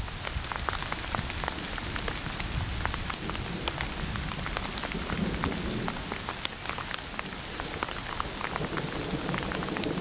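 Rain falling: a steady hiss with many small, scattered ticks of drops.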